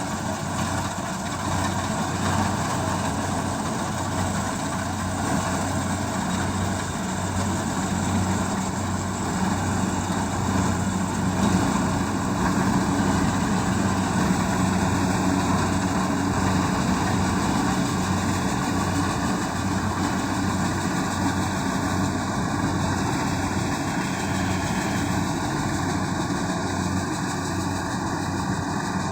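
Kubota DC-70G combine harvester's diesel engine running steadily.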